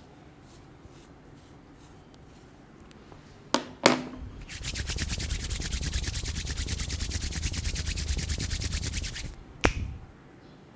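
Massage hands at work: two sharp snaps, then about five seconds of fast rhythmic rubbing strokes at roughly ten a second, and one more sharp snap near the end.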